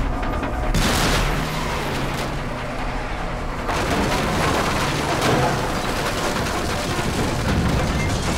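Action-film sound effects of an armored bus crashing through boats and a wooden dock: dense crashing and banging over the engine. There is a sharp burst about a second in and another surge near four seconds.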